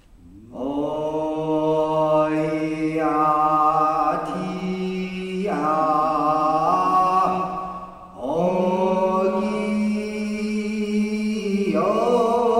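Voices singing a Korean boat song (baennorae), unaccompanied, in long held notes. The singing starts about half a second in, breaks briefly about eight seconds in, and resumes with a wavering vibrato near the end.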